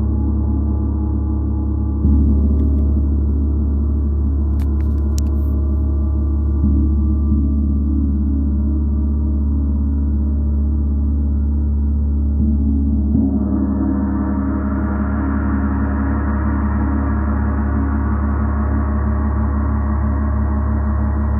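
A gong rings continuously with a deep hum and many layered overtones. It is struck softly again about 2 and 7 seconds in, then more firmly around 13 seconds in, which brings up brighter overtones that keep ringing.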